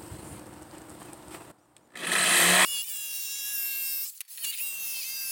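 Corded jigsaw cutting through plywood, starting about two seconds in, loudest in its first half-second and then a steady motor whine. It stops briefly just after four seconds and starts cutting again.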